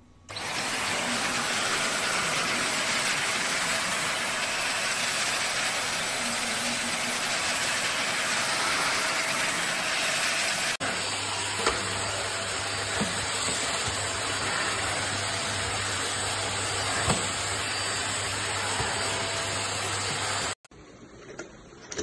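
A corded handheld stick vacuum cleaner switches on and runs with a steady rushing noise. About halfway through, the tone changes and a low hum comes in underneath. It cuts off suddenly near the end.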